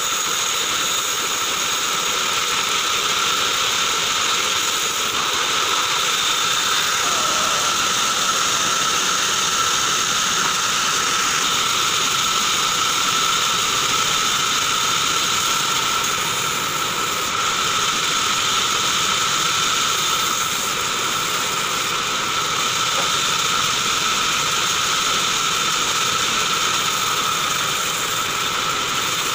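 Vertical bandsaw running steadily with a high whine, its blade sawing short lengths of log.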